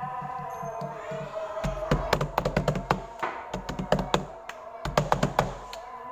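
Slime worked by hand, giving a quick run of sharp pops and clicks for a few seconds in the middle, over background music.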